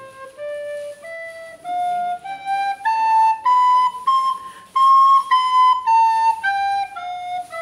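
Plastic soprano recorder playing a slow musical scale, one clear note at a time. It climbs note by note about an octave from low to high, then comes back down.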